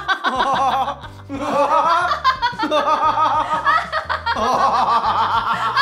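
A woman laughing hard in long runs of "ha ha ha", over background music with a bass line.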